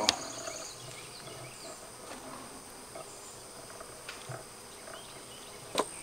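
Honeybees buzzing faintly around the hive, with one sharp click right at the start.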